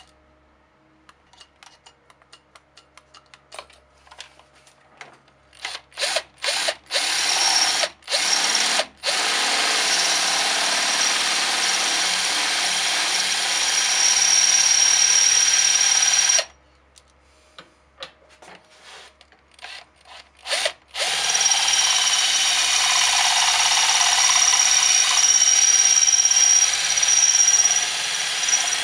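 Cordless drill with a 9 mm bit cutting a countersink for a 209 shotgun primer into the head of a cartridge case held in a vise. It starts with a few short trigger blips, then runs for several seconds with a steady high whine, stops, blips a few more times, and runs again for the last several seconds.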